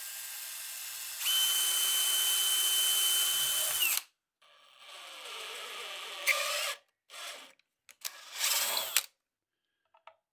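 DeWalt XR cordless drill running while drilling into thick aluminum plate. One long run winds down about four seconds in, then come several shorter runs, the last ending about nine seconds in. A few faint clicks near the end.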